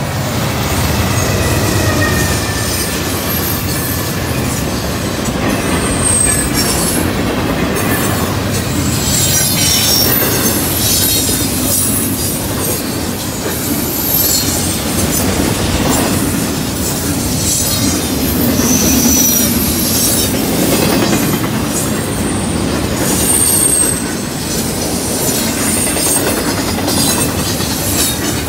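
Double-stack intermodal freight train passing close by at speed: the rumble of the lead Norfolk Southern diesel locomotives in the first seconds, then the well cars rolling past with steady wheel rumble, clatter over the rail joints and short high-pitched flange squeals now and then.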